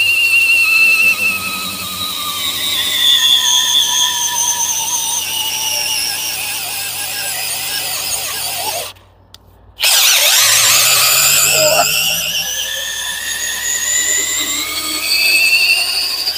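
DeWalt cordless drill boring an auger bit into the base of a large wooden carving. The motor's whine drops in pitch as the bit bites, stops for about a second midway, then starts again and climbs in pitch as the hole is finished.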